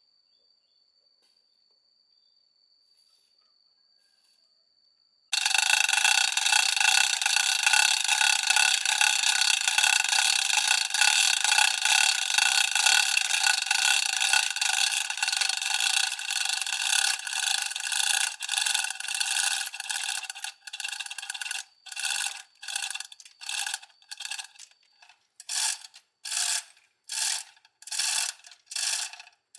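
A metal ratchet mechanism clicking fast and continuously, starting suddenly about five seconds in. From about two-thirds of the way through it breaks into separate short strokes, roughly one or two a second.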